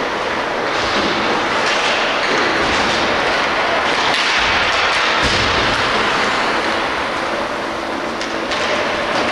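Ice hockey play in a rink: skate blades scraping and hissing on the ice, with a couple of dull thumps around the middle and a few sharp clicks near the end.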